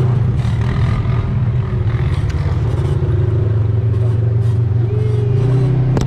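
Polaris RZR side-by-side engine running under way on the trail, a steady loud drone whose pitch dips a little about halfway and picks up again near the end as the throttle changes.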